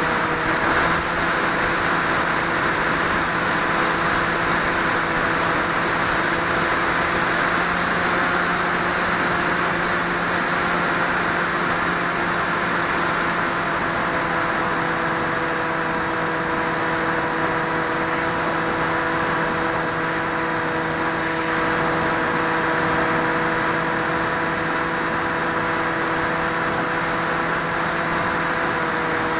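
A Swift 2 FPV model plane's motor and propeller running steadily in flight, a hum of several steady tones over a rush of air, picked up by the small camera on board.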